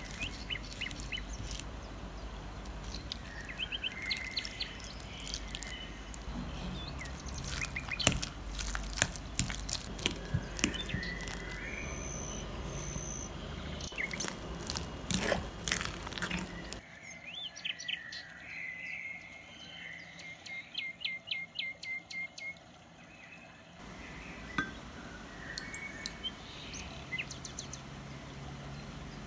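Metal fork clicking and scraping against a glass bowl as soft boiled potatoes are pressed and mashed, with repeated high chirping in the background.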